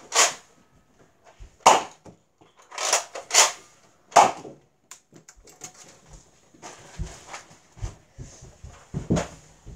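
Nerf dart blaster being fired and worked several times, five sharp snaps and clacks over the first four seconds or so, then softer knocks and handling noise with a few dull thumps.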